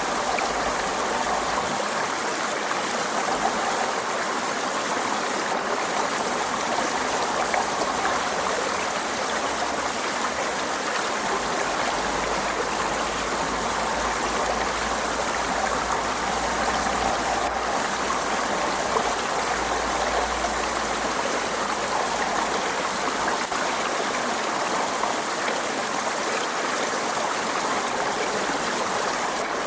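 Forest stream flowing in a steady, even rush of water over rocks, with babbling and trickling.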